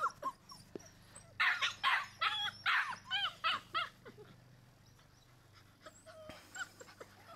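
Foxred Labrador puppy whining and yipping in a run of short, high squeaks, bunched together about a second and a half to three and a half seconds in, then fading to scattered faint sounds. The puppy is begging to suckle from its mother, who fends it off.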